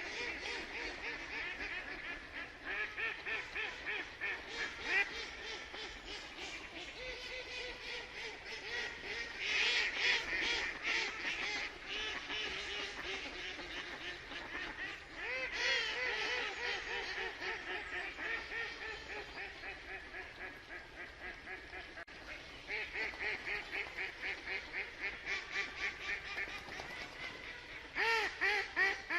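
Ducks quacking in quick runs of short calls that keep going throughout, louder around ten, sixteen and twenty-eight seconds in.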